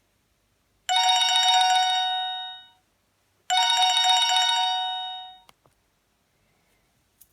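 General Mobile phone ringtone: a warbling electronic ring sounding twice, each ring about two seconds long and fading out.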